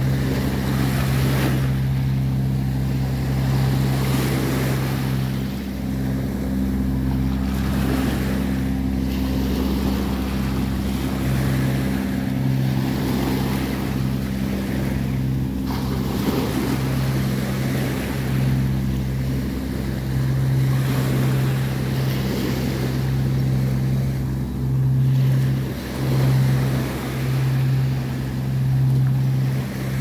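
Small waves washing and surging over rocks and sand at the shoreline, over a steady low motor hum. Near the end the surf rises and falls in quick swells.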